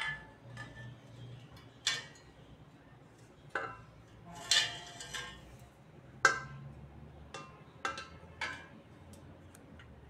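Metal square-tube pieces of a shoe bench frame knocking and clinking against each other as they are handled and fitted together. There are about seven sharp knocks spread out, with a longer rattle about halfway through.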